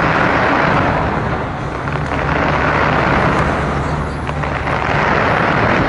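Fireworks barrage heard from a distance: a dense, continuous crackle and rumble with no clear single bangs, swelling and easing a few times.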